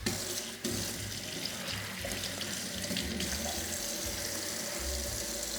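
Water running steadily from a tap over a diamond sharpening stone on a sink bridge, wetting the freshly resurfaced stone to show any leftover scratches.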